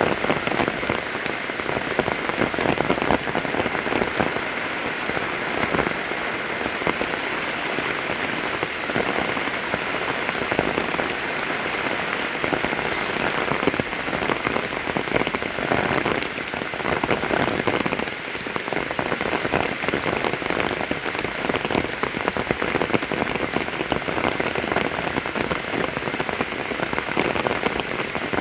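Steady rain falling, a dense even hiss made of countless separate drops striking nearby surfaces.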